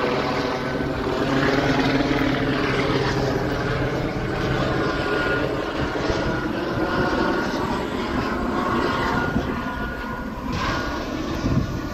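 Police helicopter flying overhead: a steady drone of rotor and turbine engine, heard as a stack of even tones that drift a little in pitch.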